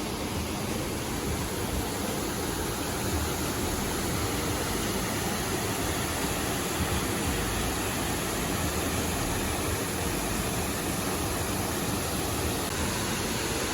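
Steady rushing roar of a waterfall, an even, unbroken wash of falling water.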